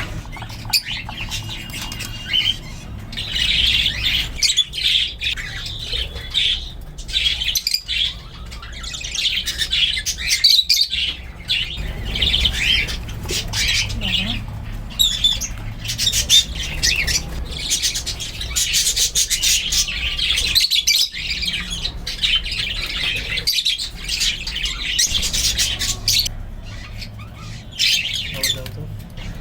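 Budgerigar chicks squawking and chattering continuously, a dense stream of raspy, rapidly repeated calls.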